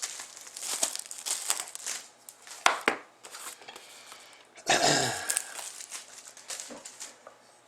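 Plastic wrapping crinkling and packaging tearing as a trading-card box is opened by hand, with sharp clicks and handling rustles. A louder burst of rustling noise comes about five seconds in.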